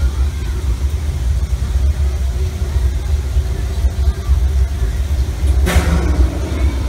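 Steady low rumble in a steam locomotive's cab, with a brief burst of hiss a little under six seconds in.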